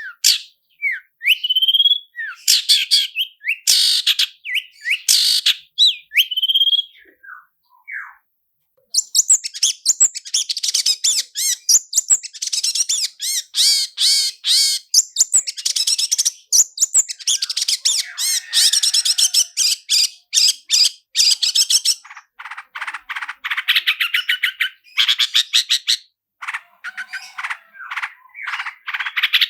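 Long-tailed shrike (cendet) singing. It opens with separate rising chirps, then after a brief pause about eight seconds in breaks into a long, fast run of tightly packed notes, and ends with quick repeated note groups.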